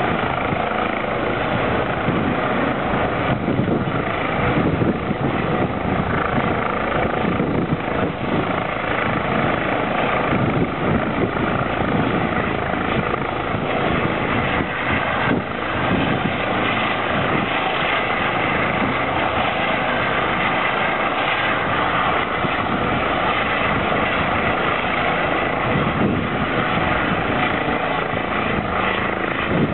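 Eurocopter EC135 twin-turbine helicopter running steadily on the ground, its main rotor turning and its ducted Fenestron tail fan spinning, a constant loud rotor and turbine noise.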